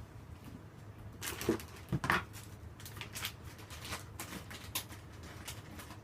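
Kitten licking a person's palm: a run of small, irregular clicks starting about a second in and fading out near the end.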